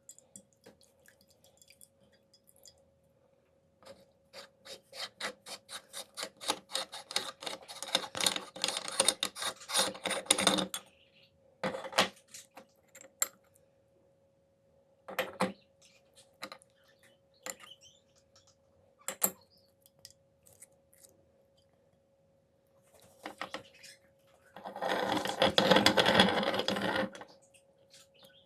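Meat grinder working through watermelon: a quickening run of clicks and crunches, then a few scattered knocks, and a dense grinding burst near the end, over a faint steady hum.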